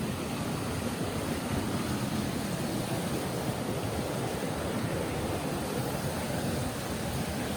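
Mountain stream water rushing steadily in a rocky valley.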